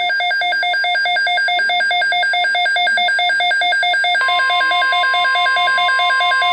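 Midland NOAA weather radio sounding its alert for a severe thunderstorm watch: a fast beeping that alternates between two pitches, several beeps a second. About four seconds in, a steady single-pitch tone, the broadcast's 1050 Hz warning alarm tone, joins the beeping.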